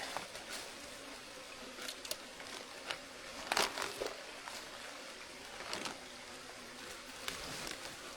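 Scattered short rustles and scrapes of honeycomb dregs being scooped and packed into a sack, over a faint steady hiss.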